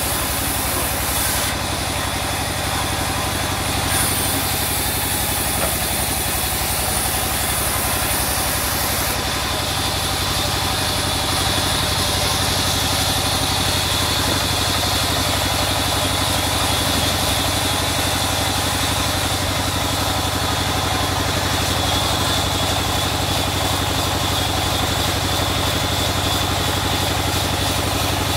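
Sawmill band saw running steadily with a constant low hum, its blade sawing through a rain tree log.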